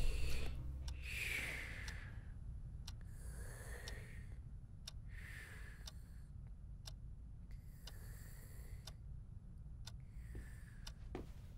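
Clock ticking about once a second, with the slow, soft breathing of people asleep rising and falling every couple of seconds. Music fades out in the first second or so.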